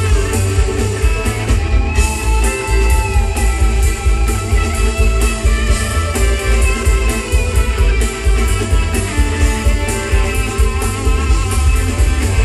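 A live band plays an instrumental passage with no singing. An electric guitar leads with some bending notes over upright bass and a steady drum beat.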